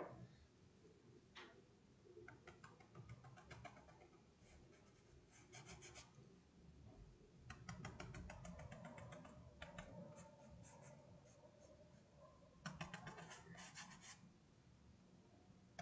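Faint quick taps and scratching of a paintbrush dabbing white paint onto fabric, in three runs of rapid ticks.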